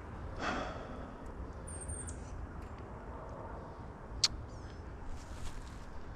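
A brief rustle near the start and a single sharp click about four seconds in, over a low steady rumble.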